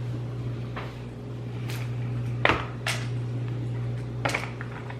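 Scattered light clicks and taps of cardboard jigsaw puzzle pieces being picked through and set down on a table, about five in all, the loudest about halfway through. A steady low hum runs underneath.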